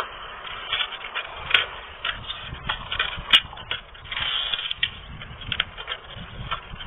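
Close-up crunching and chewing of crispy deep-fried chicharon bulaklak: an irregular run of crackles and crunches, with a couple of sharper cracks in the middle.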